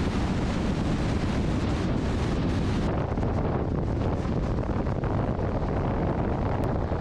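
Steady wind noise on the microphone with the road noise of a car driving along a highway.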